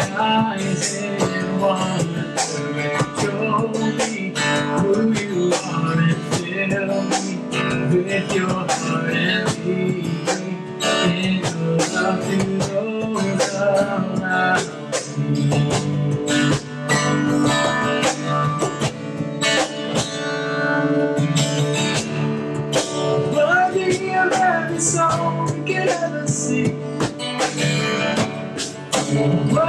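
Acoustic guitar strumming with a cajon keeping the beat and a man singing a slow worship song.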